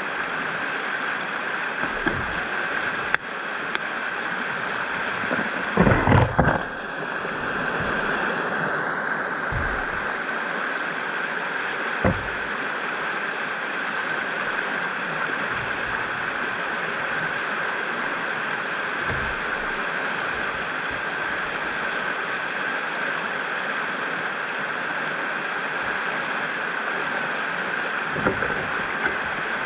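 Steady rushing of river rapids on a river running high, with a few short knocks and thumps, the loudest cluster about six seconds in.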